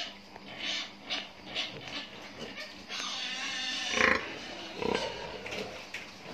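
Domestic pigs calling: a run of short calls, then a louder cry about four seconds in and another about a second later.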